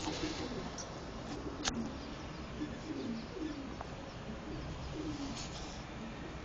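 Pigeon cooing: a run of low, repeated coos, with a sharp click about two seconds in.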